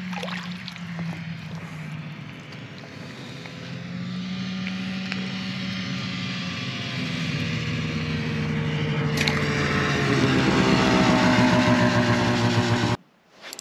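A motor vehicle's engine running steadily and getting louder over about ten seconds as it approaches, its pitch drifting slightly. It cuts off suddenly near the end.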